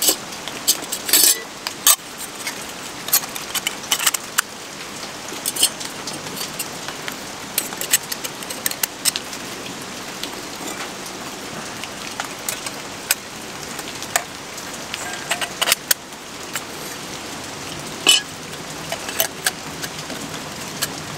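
Thick steel plates of a flat-pack folding wood stove clinking and scraping against each other as they are slotted together, in irregular sharp clicks, the loudest about a second in and again near the end. Steady rain hisses underneath.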